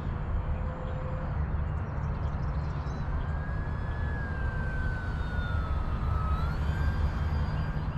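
Electric motor and propeller of an RC FMS Cessna 182 model in flight: a thin whine that slowly falls in pitch as the throttle comes back, then rises again briefly near the end. A steady low rumble underlies it throughout and is the loudest part.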